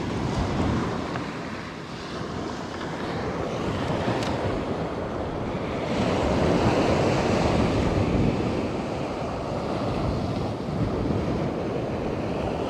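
Surf washing onto a sand beach, a steady rush that swells about six seconds in, with wind buffeting the microphone.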